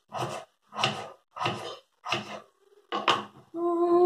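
Steady rhythmic knocking, about three strokes every two seconds; near the end a voice begins singing a held note.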